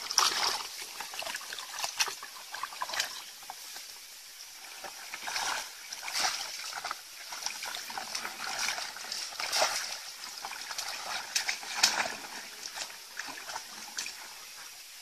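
Shallow muddy paddy water splashing and sloshing as a woven bamboo plunge basket is thrust down and lifted again and again while the fisher wades. The splashes come irregularly every second or two, the loudest at the very start and about 12 seconds in.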